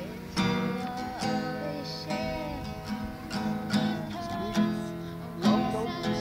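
Acoustic guitar strummed in steady chords, one struck about every second, each ringing on into the next.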